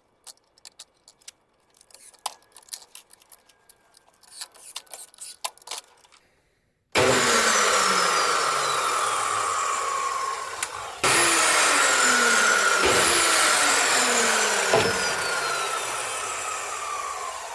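A few small clicks and taps, then about seven seconds in the DeWalt DW872 metal-cutting chop saw's motor starts abruptly and winds down with a falling whine, and about four seconds later it is started again and winds down once more. This is the test of the repaired switch, whose welded-together contact has been cleaned, now switching the saw on and off.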